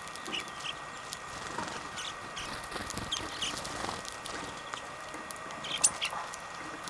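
A flock of greenfinches feeding on black sunflower seeds: many small irregular clicks and taps of seeds being cracked and shifted, with a few short chirps.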